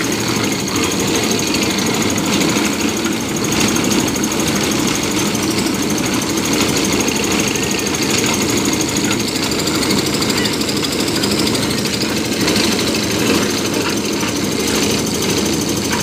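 Concrete mixer running steadily: its engine chugs while the turning drum churns wet concrete and gravel.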